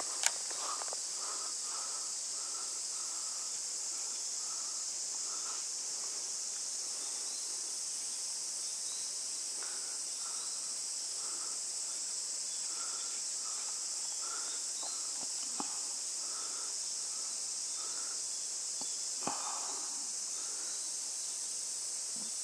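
Steady, high-pitched shrill of summer insects. A softer chirp repeats beneath it about every half second, and a few faint clicks come through.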